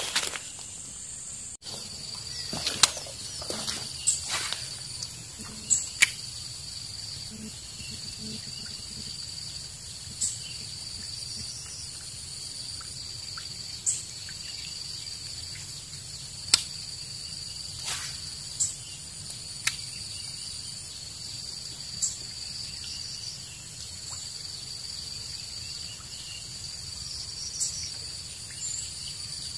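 Insects droning steadily in a constant high tone, broken a dozen or so times by short, sharp swishes and clicks from a fishing rod being cast and a baitcasting reel working.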